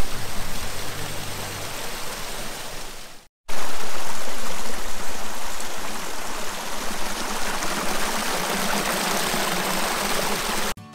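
Small woodland cascade: a steady rush of water tumbling over rocks in a stream. It breaks off sharply a little over three seconds in, then comes back louder and closer to the falling water.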